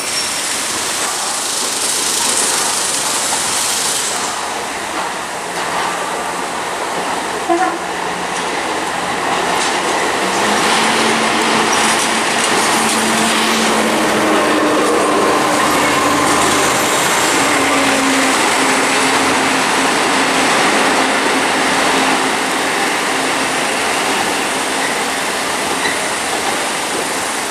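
A diesel train moving through the station, a steady rumble of engine and wheels on rail. The engine note shifts in pitch partway through, and there is a short clank about seven and a half seconds in.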